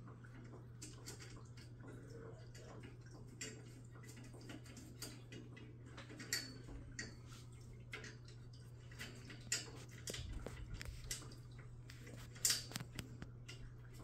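Scattered small metal clicks and taps as screws and hardware are handled and fitted into a metal bakers rack's frame during assembly, the sharpest about two-thirds of the way through and near the end. A steady low hum runs underneath.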